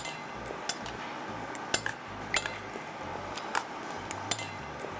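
Metal chopsticks clinking and scraping against a brass bowl while noodles are mixed, in sharp, irregular clinks about once every half second to second.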